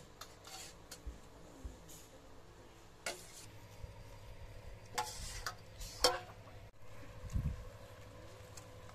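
A steel ladle clinking and knocking against a steel pot a few times as curry is served, the sharpest knocks about three, five and six seconds in, with soft low thumps between them.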